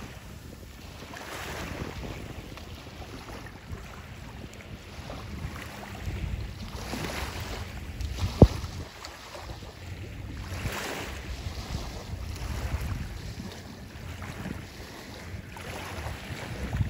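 Wind buffeting the microphone in a low rumble, with gentle waves washing in softly every few seconds. A single sharp click about halfway through.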